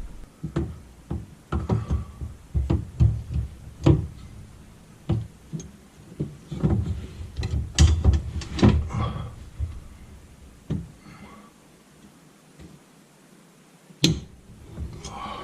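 Irregular knocks, clunks and taps of hand work in a small room, busy for about ten seconds, then nearly still until one sharp knock near the end.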